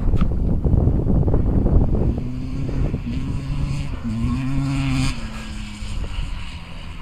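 Kawasaki KX250 motocross bike passing by. A loud rumble for the first couple of seconds gives way to the engine note rising and falling with the throttle, which fades away near the end.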